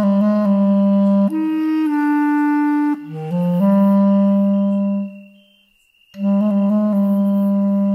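Solo clarinet playing a slow melody of low held notes joined by quick runs of short notes; about four seconds in a long note swells, then fades away into a brief pause before the playing picks up again.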